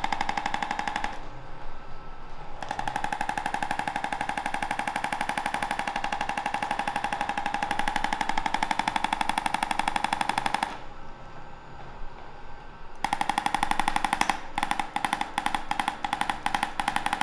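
Handheld electric percussive chiropractic adjusting instrument tapping very rapidly against a small dog's back, giving a buzzing run of taps. It stops about a second in, runs again from about three seconds to eleven, pauses, and starts up again at about thirteen seconds.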